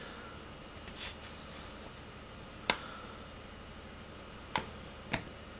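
Quiet room tone with a low steady hum and four short, faint clicks spread through it.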